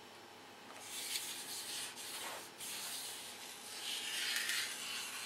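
Soft rubbing and scraping of fingers and a small hand tool working masking tape down along a model airplane's painted wing, in uneven strokes with brief pauses.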